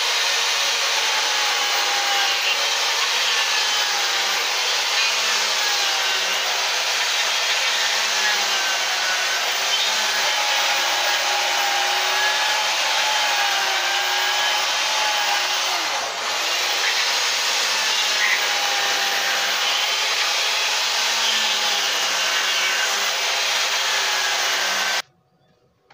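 Corded Stihl MSE electric chainsaw running and cutting into a wood block, its motor pitch wavering as the chain bites and eases. It dips briefly about two-thirds of the way through and cuts off suddenly near the end.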